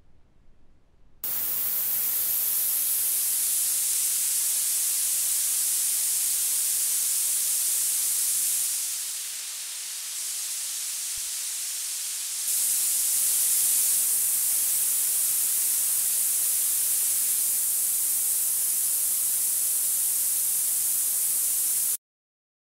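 A synthesized noise sweep from FL Studio's 3xOsc played through Fruity Free Filter and Parametric EQ 2: a steady, bright hiss that starts about a second in. Midway it drops in level and goes duller for a few seconds as the EQ's high band is pulled down, then comes back louder and cuts off suddenly near the end.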